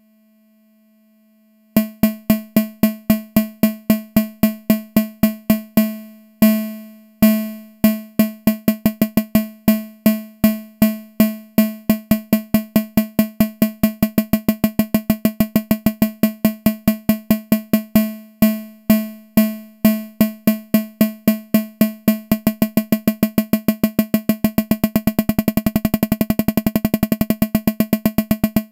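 A modular synthesizer tone at one fixed pitch, chopped into short plucked pulses by a self-cycling Make Noise Contour envelope running like an LFO, with control voltage changing its decay time. After about a second and a half it pulses about three times a second, slows briefly with longer tails, then speeds up into a fast rattle near the end.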